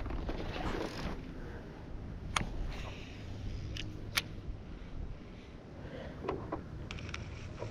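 Baitcasting reel being handled: a few sharp, separate clicks over a low steady rumble of wind and water.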